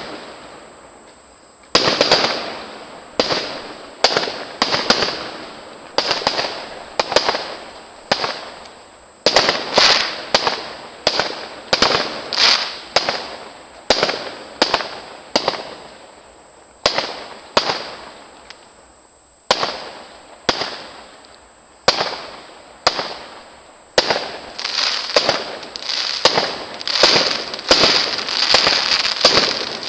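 Aerial fireworks display: shells bursting with sharp bangs one after another, each trailing away in echo. The bangs come thicker and faster in the last few seconds.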